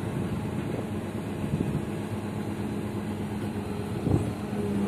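Heavy lifting machine's engine running steadily with a low hum, while a guard post is lifted. A single knock sounds about four seconds in.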